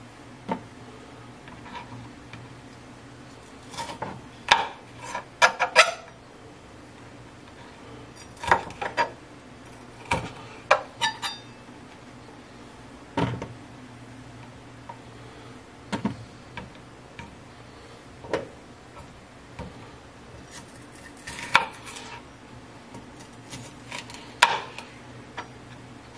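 Chef's knife chopping a red bell pepper on a cutting board: sharp, irregular knife strikes in short clusters with pauses between.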